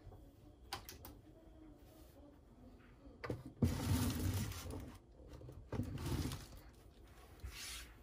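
Handling noises at a kitchen counter: paper rustling and scraping. A louder stretch of about a second and a half starts about three and a half seconds in, while the camera is jostled, and a shorter one comes near six seconds.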